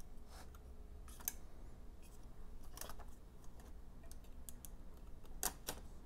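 Faint, scattered clicks and taps of hands handling and seating the logic board inside an opened MacBook Pro's aluminium case, about half a dozen light knocks.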